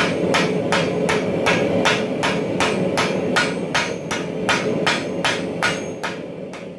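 Hand hammer striking hot steel on an anvil in a steady forging rhythm, about two to three blows a second, over a steady low rumble; the blows grow fainter near the end.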